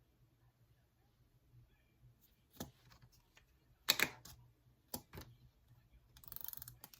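A few sharp clicks and knocks, the loudest about four seconds in, then a short rattling burst near the end.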